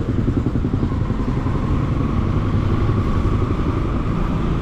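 Motorcycle engine running steadily while riding, with road rumble and wind noise.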